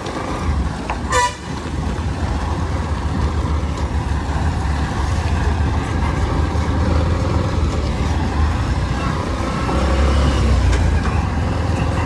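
Steady low rumble of a Bajaj motorcycle riding along a rough dirt road, with one short horn beep about a second in.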